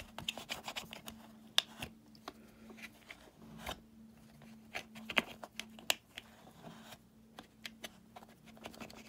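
Paper towel rubbing and scraping over the plastic vent slats of a Eureka Victory upright vacuum, with scattered small clicks and taps as the plastic is handled.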